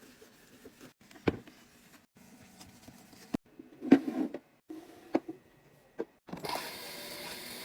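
Items being handled and set down during fridge restocking: a few separate sharp knocks and clicks with soft rustling between them, then a steady hiss that starts near the end.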